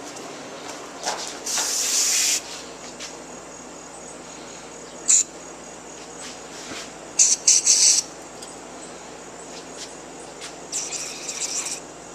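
Aerosol carburetor cleaner sprayed in four short hissing bursts into the parts of a clogged carburetor to flush out the gunk; the third and fourth bursts come in quick pulses.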